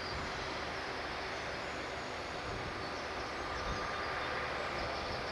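Airbus Voyager KC3 tanker's Rolls-Royce Trent 700 turbofans running steadily at taxi power: an even jet rush with a thin steady whistle over it.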